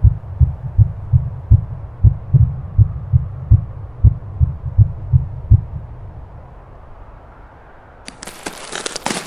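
Deep, heartbeat-like thumping, about two and a half beats a second, that stops about five and a half seconds in. Near the end comes a short burst of dense crackling and crunching.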